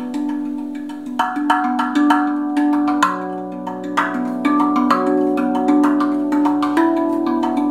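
Rav Vast steel tongue drum played with the fingers: quick taps on several tongues give bell-like ringing notes that overlap and sustain, with a deeper note joining about three seconds in.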